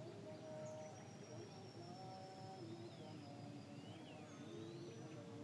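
Wild birds calling faintly, with thin chirps and whistles sliding up and down in pitch, over a steady low background noise. Underneath runs a faint distant melody of held notes that step in pitch.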